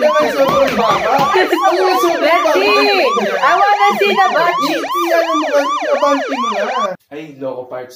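Siren sound effect: quick rising-and-falling wails, about four a second, several layered over one another, loud, cutting off suddenly about seven seconds in.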